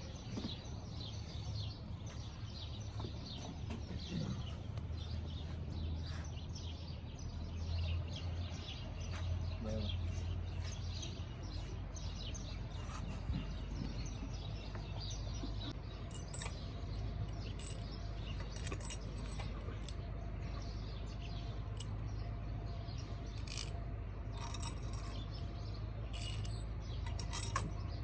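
Scattered light metallic clinks and taps of tools and small engine parts being handled, more frequent in the second half, over a low steady hum.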